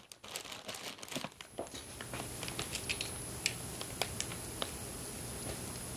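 Plastic bags crinkling and small parts clicking and tapping on a workbench as they are moved aside, with a faint steady high whine behind.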